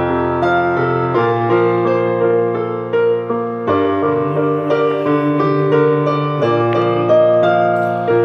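Roland digital keyboard played with a piano voice: slow, sustained chords over a bass line that changes every second or two.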